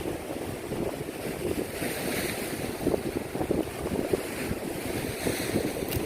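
Wind buffeting the microphone over the wash of ocean surf, the hiss of the waves swelling twice.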